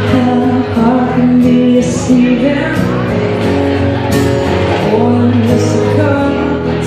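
Live music: a woman singing over a strummed acoustic guitar and an electric bass guitar.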